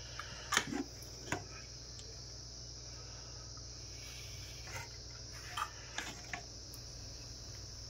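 A perforated metal skimmer spoon scraping and clicking against the pot as cooked biryani rice is turned over: a few light clicks, the two loudest about half a second and just over a second in, more between about five and six and a half seconds. A steady high-pitched whine runs underneath.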